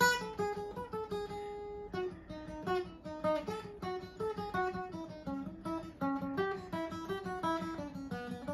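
Steel-string acoustic guitar played with a pick: a fast single-note lick in E, repeating three-note patterns picked down-up with the last note hit twice. It opens with a loud struck note held for about a second, then runs on as a quick stream of picked notes.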